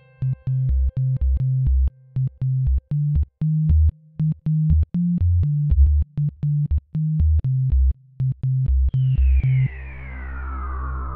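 Background electronic music: a synthesizer bass line in short, punchy notes with a steady beat. About nine seconds in, a falling sweep comes in over a sustained low drone.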